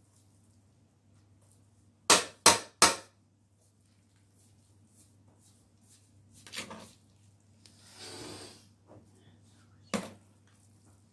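A serving utensil knocking against a plastic food tray: three quick loud knocks, as if tapping food off, then a brief scrape and one more sharp knock near the end.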